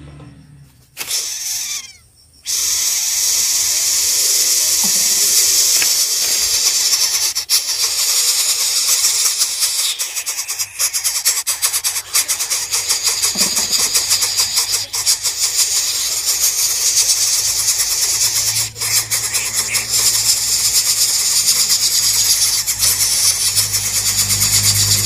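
Coucal chicks begging for food in the nest: a loud, continuous raspy hiss with a fast fine pulse, starting suddenly a couple of seconds in.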